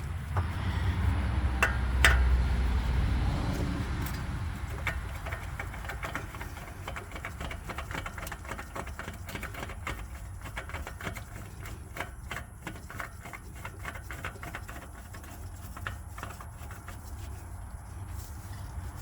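Handling and clicking as a new oil filter is threaded onto a Polaris Ranger 500 engine: a low rumble and a couple of sharp knocks at first, then a long run of quick, irregular clicks.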